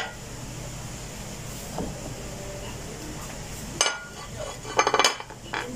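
Butter sizzling steadily in a frying pan around two frying oatmeal pancakes, with a sharp knock near four seconds in and a brief clatter about a second later.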